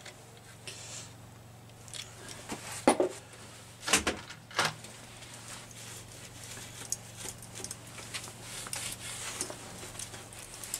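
Hand tools and metal engine parts clinking and knocking on an open engine crankcase during assembly, with a few sharper knocks between about three and five seconds in.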